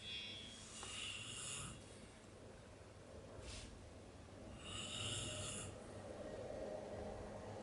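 A person snoring in their sleep: rasping snores that come about every four seconds.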